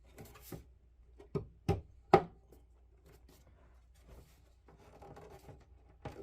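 Toy diorama wall pieces being fitted onto the floor piece's pegs: three sharp knocks and clicks between about one and a half and two seconds in, the last the loudest, then light handling noise.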